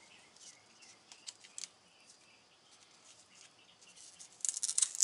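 Handling of a rotisserie motor's coiled rubber power cord and plastic plug: a few faint clicks, then a short burst of crackling and rustling near the end.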